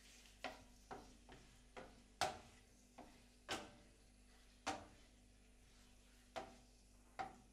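Wooden spatula knocking and scraping against a non-stick frying pan while turning raw chicken pieces: about ten light, irregular knocks, the loudest about two seconds in.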